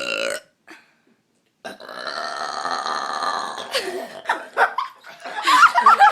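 After a brief sound right at the start, a girl lets out one long, drawn-out burp lasting about two seconds, followed by laughter.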